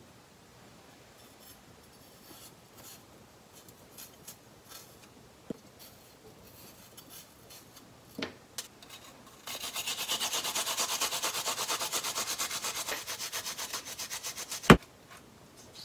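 Fresh ginger being grated on a handheld grater: quick, even rasping strokes, about ten a second, lasting some five seconds and ending in one sharp knock. Before that, faint scattered scrapes and taps as the ginger is peeled with a knife.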